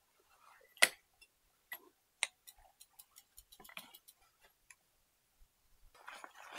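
A bicycle being handled and turned over: a sharp knock about a second in, another a second later, then a run of light, evenly spaced ticks for about two seconds, as from the bike's freewheeling rear hub as the wheel turns.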